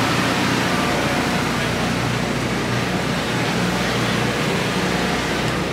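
Mobile generator running steadily: an even hum with a broad hiss that holds at one level throughout.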